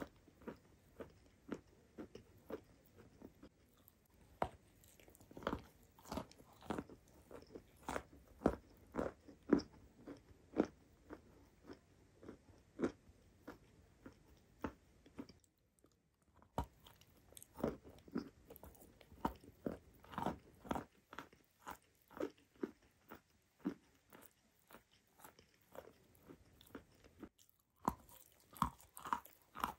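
Crunching and chewing of a chunk of white chalk coated in chalk paste, close to the microphone: a steady run of crisp bites and crunches, a few per second, broken by a silent gap of about a second midway.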